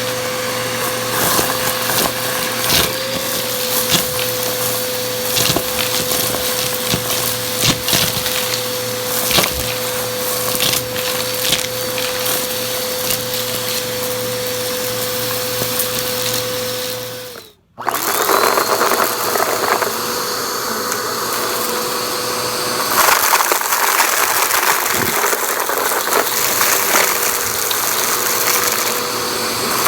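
Vacuum cleaner running with a steady motor whine while it sucks up crunchy debris, with frequent crackles and clicks as bits rattle up the nozzle. A little over halfway through the sound cuts out abruptly for a moment, then comes back as a smoother, hissier suction with fewer crackles.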